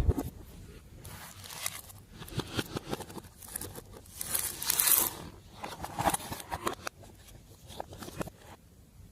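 Glossy slime being worked by hand, with sticky crackles and small pops and a louder stretching swell about four to five seconds in; it dies away near the end.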